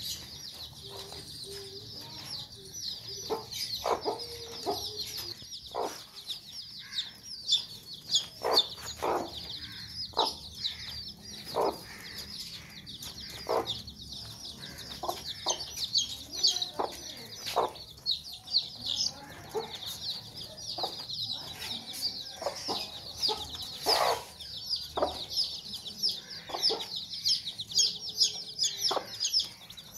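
A brood of young chicks peeps in a continuous high chorus. Over it, a Sussex mother hen clucks in short, lower calls every second or so, with one louder call about three-quarters of the way through.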